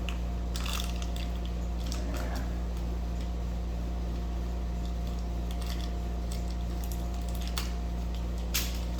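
Steady low hum of a room air conditioner, with scattered light clicks and rustles of small parts being handled and one sharper click near the end.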